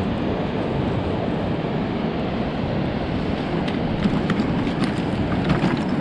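Wind buffeting the microphone on an open beach: a steady rushing noise, mostly low, with surf mixed in. A few short clicks come in the last couple of seconds.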